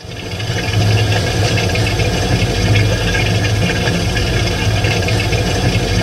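Refrigerator refrigerant-flow noise: a steady hissing and gurgling, like water running through pipes, over a low hum, as oil or refrigerant is pumped and circulated through the cooling tubes. It swells in over the first second.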